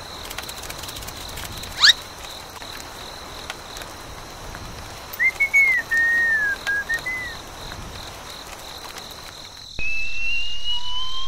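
Cartoon whistle sound effects over a steady outdoor ambience with a constant high tone: a quick upward swish about two seconds in, a short run of whistled, bird-like chirps in the middle, and a slowly rising whistle tone starting near the end.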